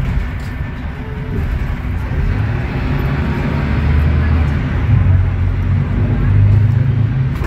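Mercedes-Benz OM936LA six-cylinder diesel of an O500U city bus with Voith DIWA.6 automatic transmission running as the bus drives, heard from inside the passenger cabin. The engine note grows louder after the first second or so, peaking near the end.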